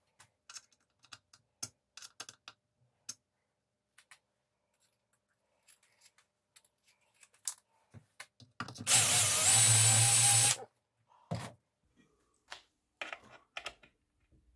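Light clicks and taps of small tools and parts being handled on a workbench, with a small electric power tool run once for about two seconds partway through, the loudest sound.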